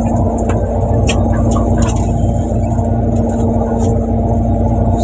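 A fishing boat's engine running with a steady drone and hum, with a few short sharp clicks and knocks from gear being handled on deck.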